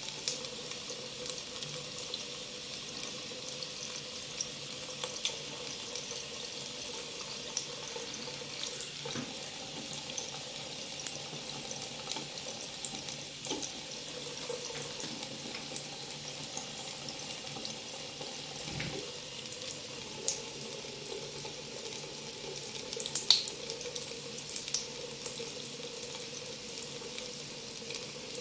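Water running steadily from a tap into a sink, with small splashes.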